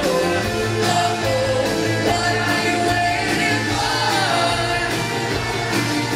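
Rock band playing live with electric guitars, bass, drums and a male lead voice singing, at a steady loud level, as heard from within the audience.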